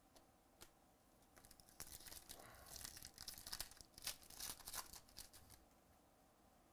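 Foil wrapper of a 2018 Donruss Optic baseball card pack being torn open, a faint run of crinkly tearing that starts about a second and a half in and dies away near the end. Two light clicks come just before it.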